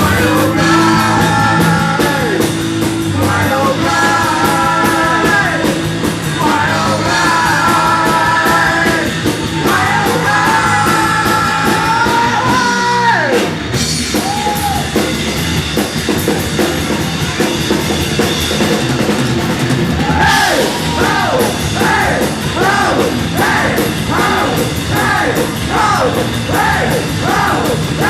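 Live rock band playing loudly: drums, amplified instruments and yelled vocals. Long held notes slide down and fall away about 13 seconds in. From about 20 seconds on, short notes repeat about twice a second.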